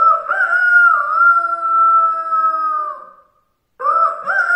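A man imitating a rooster's crow with his voice: one long, high call of about three seconds with small wobbles in pitch, then a short pause and a second crow beginning near the end.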